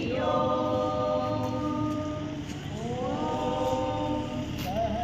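A group of voices singing or chanting in unison in two long held notes, the second sliding up into place about halfway through.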